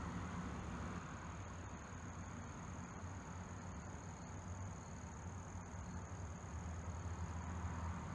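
Diesel truck engine idling, heard from inside the cab: a steady low rumble with a faint steady high whine above it.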